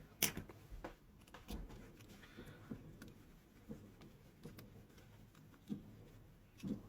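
Faint, scattered clicks and light knocks of plastic parts being handled and fitted together as a Philips electric shaver's casing is reassembled.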